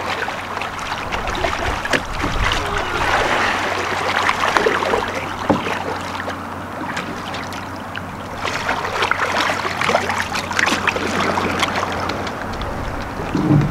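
Canoe paddle strokes dipping and pulling through the water, with water splashing and lapping against the hull as the canoe is paddled in on choppy, breezy water.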